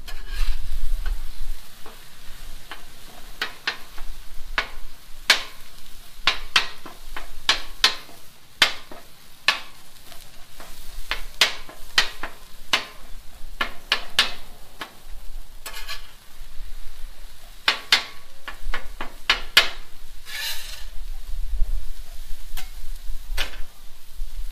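Ground beef sizzling on a Blackstone griddle's steel cooktop while a metal spatula chops and scrapes through it, with many sharp, irregular clacks of the blade striking the plate.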